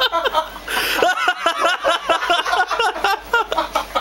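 Men laughing in quick repeated bursts.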